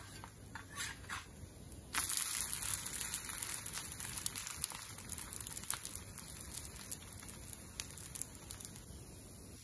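A spatula scrapes under an adai dosa on an oiled dosa griddle (tawa). About two seconds in, the dosa is flipped and its raw side lands on the hot oil, setting off a sudden sizzle and crackle that slowly dies down, with a few clicks as the spatula presses it.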